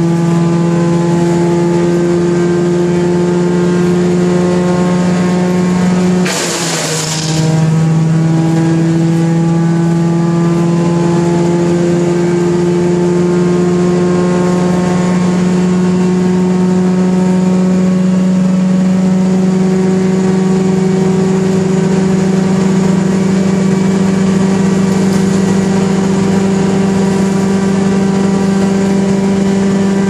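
1974 Wayne wood chipper's engine running steadily at speed. About six seconds in, a brief burst of chipping noise as brush goes through the drum; the engine dips in pitch under the load and then slowly climbs back up.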